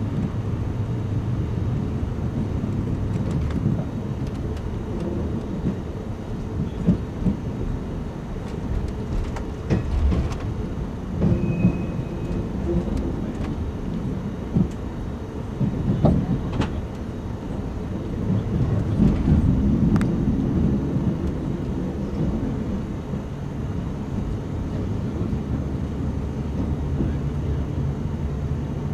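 Inside the car of a TGV trainset on a TER-GV service pulling out of a station: a constant low rumble from the wheels and running gear, with scattered clicks and knocks from the track. A steady low hum sets in near the end.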